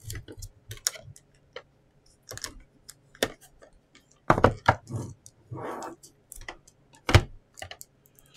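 Hard plastic graded-card holders (SGC slabs) clicking and clacking against each other as a stack of them is handled and taken apart: irregular sharp clacks, the loudest about halfway through and again near the end.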